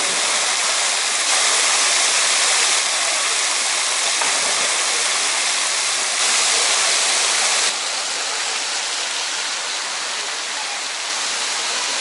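Steady rush of falling water: a heavy jet of water pouring into a pool and splashing on its surface, the loudness shifting a little in steps a few times.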